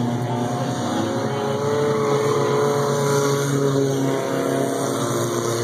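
Several race car engines running as the cars circle the track, their pitches slowly rising and falling.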